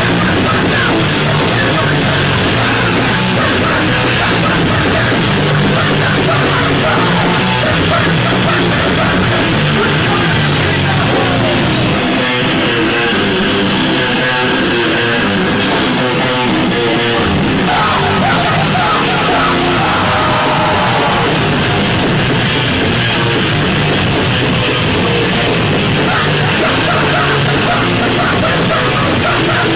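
Live hardcore band playing loud: distorted electric guitar, bass and drum kit, with yelled vocals.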